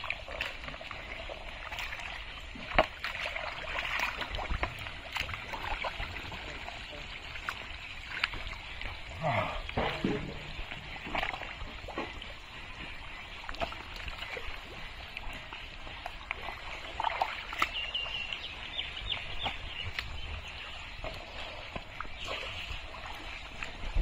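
Thick, wet pond mud squelching and splashing as a person wades and gropes through it by hand, with scattered splats and slaps as fish are pulled out and thrown.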